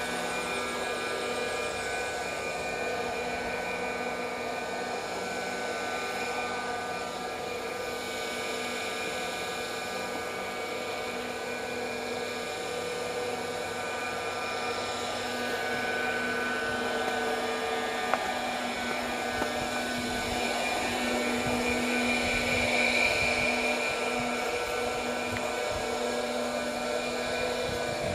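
Steady mechanical hum made of several held tones, like a motor running, with no break in it.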